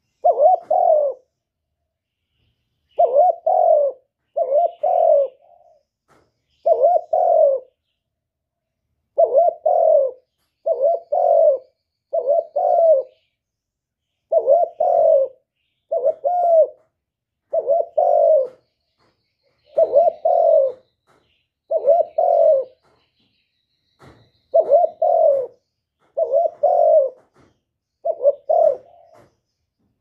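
Male spotted dove cooing: a long series of low coos, each about a second long, some in quick pairs, repeating through the whole stretch with only short pauses.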